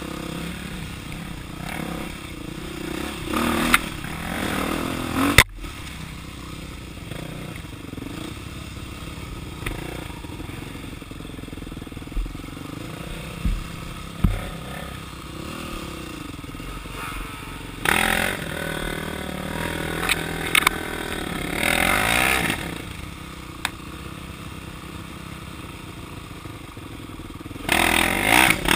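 Dirt bike engine running as it rides a trail, throttle rising and falling, with several sharp knocks and bursts of brush scraping against the bike and rider.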